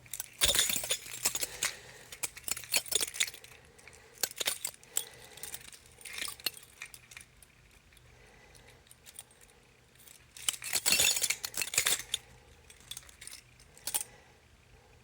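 Irregular clicking and clinking from small hard parts being handled, like keys or plastic and metal pieces knocking together. It comes in bursts, heaviest just after the start and again around eleven seconds in.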